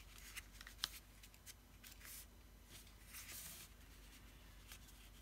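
Faint rustling and light taps of cardstock being handled and pressed on a tabletop, with a sharp tick about a second in and soft swishes of paper sliding around two and three seconds in.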